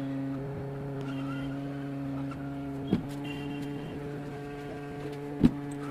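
Hot air rework station's blower running with a steady hum while a power IC is reflowed back onto a phone board. Two sharp clicks, one about halfway and one near the end.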